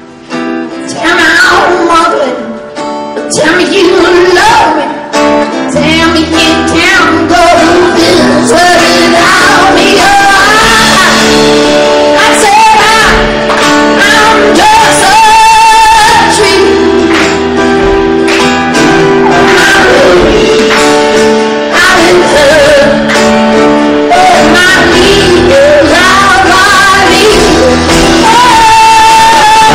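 A man singing live with a strummed acoustic guitar, holding long high notes in places.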